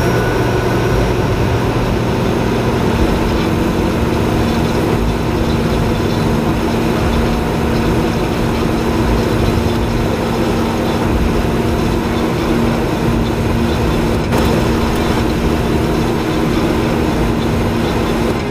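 Tank engine and tracks sound effect: a steady, loud, heavy rumble with a constant low hum, laid over toy tanks being moved.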